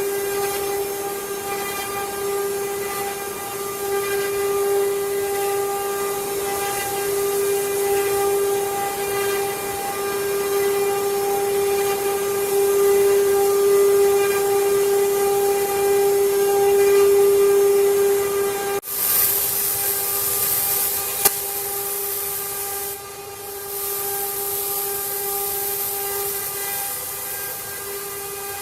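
CNC wood router spindle running with a steady high whine over a hiss of cutting. About two-thirds of the way through the sound breaks off for an instant, then resumes with more hiss and a fainter whine.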